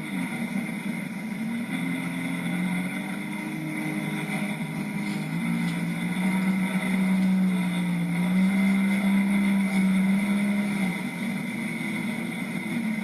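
Jet ski engine running under way, its pitch shifting with the throttle; it holds higher and louder for several seconds past the middle, then eases back near the end.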